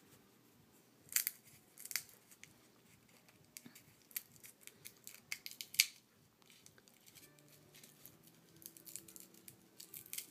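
Dry nut shells clicking and crackling as fingers rummage through them in a bowl, in small clusters about a second in, from about four to six seconds in, and again near the end.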